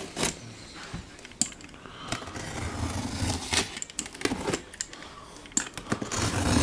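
Cardboard shipping box being handled: scattered knocks, taps and rustles.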